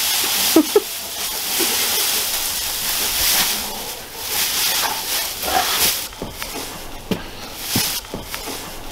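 Dry straw rustling and crunching as it is tossed down and a dog rolls and burrows in it. The rustling is loud for about six seconds, then thins to softer crackles as the dog settles.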